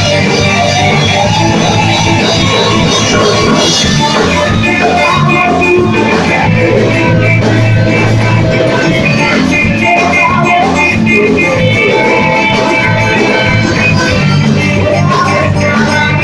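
Loud rock-style music with guitar and a drum kit, playing continuously.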